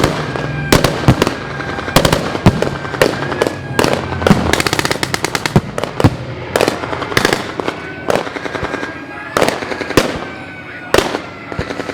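Battle gunfire: loud bangs at irregular intervals, with a rapid burst of .50-calibre machine-gun fire, about ten shots a second, a little after four seconds in. A steady wavering siren tone sounds underneath.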